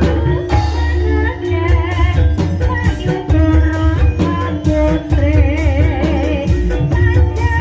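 Live gending ebeg: Banyumasan gamelan music for the horse dance, with held metallic tones and frequent drum strokes under a wavering sung vocal line.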